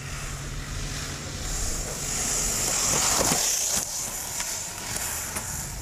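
A vehicle moving off and driving: a steady rushing noise that swells and peaks about two to three and a half seconds in, then eases, with a few faint clicks near the end.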